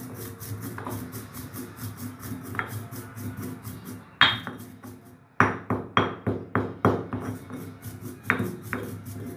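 Stone pestle crushing cumin seeds in a stone mortar (khalbatta): light grinding at first, then a sharp strike about four seconds in, a run of strikes at about three a second, and one more strike near the end.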